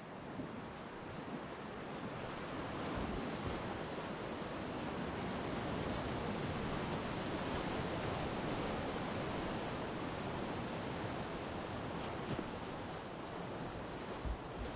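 Whitewater rapid rushing loudly around a kayak, swelling over the first few seconds, with a few brief knocks near the end.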